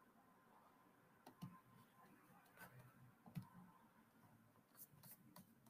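Near silence: faint room tone with a few scattered soft clicks.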